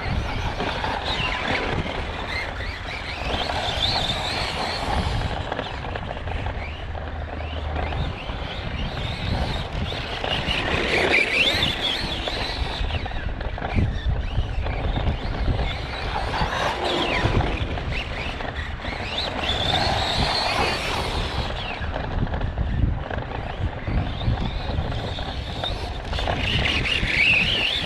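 Arrma Kraton 4S RC truck running laps, its electric motor and drivetrain whining in rising and falling sweeps as it speeds up and slows again, several times over. The drivetrain is making the noise of an unhappy bearing or gear, which the owner suspects is failing.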